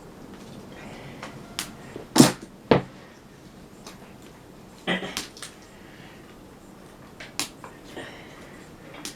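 A series of sharp knocks and clunks, the two loudest about two seconds in, from firewood and the wood stove being handled while the fire is relit.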